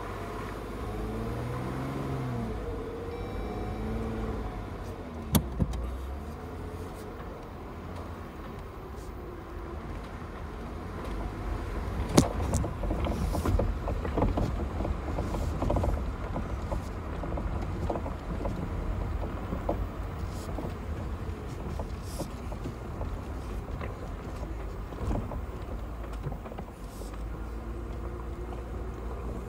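Off-road vehicle's engine running low and steady as it creeps down a bumpy trail. There are two knocks about five seconds in, then a run of clicks and rattles from about eleven seconds in, with a sharp knock near twelve seconds, as the loose phone recording it slides about on the dash.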